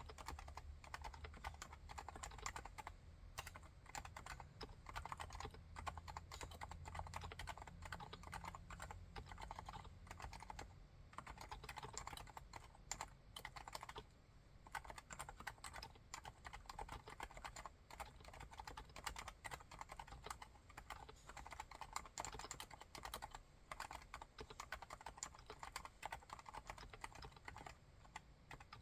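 Continuous typing on a Leopold FC660C keyboard with silent Topre electro-capacitive switches: a fast, even run of quiet, muted keystrokes, with a couple of short pauses midway.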